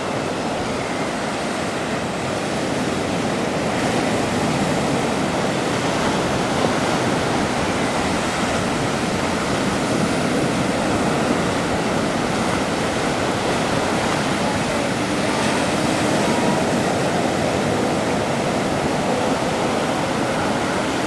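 Black Sea surf washing onto the shore: a steady, unbroken rush of breaking waves.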